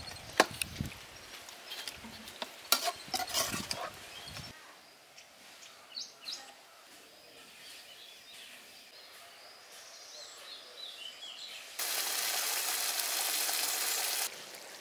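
Metal spatula scraping and clinking against a metal pot as a chicken curry is stirred, for the first few seconds. After a quieter stretch with faint bird chirps, the thick curry simmers with a steady sizzling hiss for about two and a half seconds near the end.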